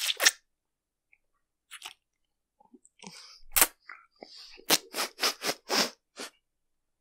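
Wet, sticky mouth noises from a mouth packed with marshmallows being pressed in and chewed. There are a couple of clicks at the start, then a run of about six sharp smacks in the second half, roughly three a second.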